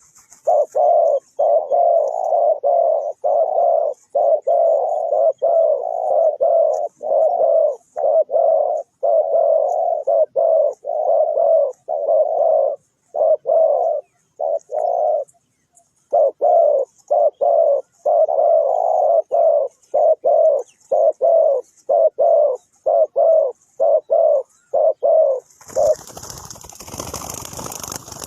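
Spotted dove cooing: a long run of short, low, burry coo notes repeated in quick succession, with a brief pause about halfway through. Near the end the cooing stops and a rustling noise follows.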